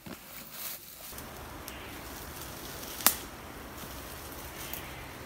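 Footsteps through dry leaf litter on a forest floor, with one sharp snap about three seconds in.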